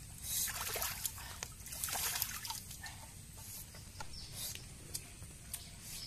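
Hands splashing and rinsing eggs in a shallow stream, with water trickling and sloshing. The splashing is loudest in the first couple of seconds and then dies down.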